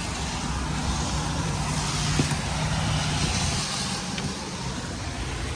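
A motor vehicle passing by: engine hum and road noise swell toward the middle and ease off again.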